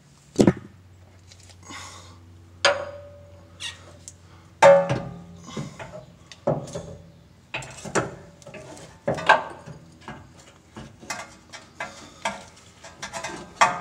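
Irregular metal clanks and knocks, some with a short ringing tail, as a replacement steering rack and pinion is slid into place and bumps against the truck's chassis.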